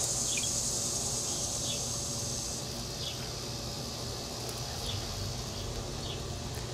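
Insects droning steadily in a high-pitched band that fades about two and a half seconds in, with a few faint soft ticks.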